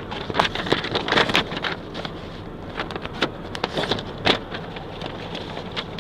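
Steady roadside traffic noise with many short, irregular clicks and crackles, thickest in the first four seconds.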